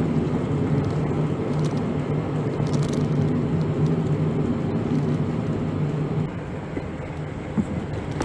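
Van engine and tyre noise heard from inside the cab while driving, a steady hum that eases a little after about six seconds.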